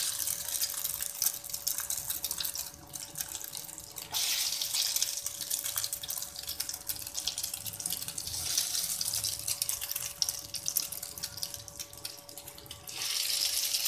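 Egg-coated koftas deep-frying in hot oil in a wok, a dense sizzle of fine crackles. It swells louder about four seconds in and again near the end as more koftas go into the oil.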